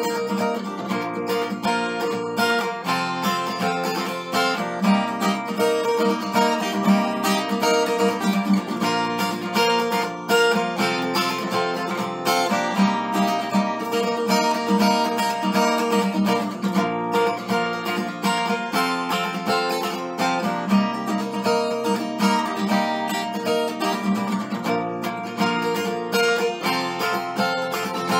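Acoustic guitar with a capo on the neck, played solo: an unbroken run of chords and plucked notes in a steady rhythm.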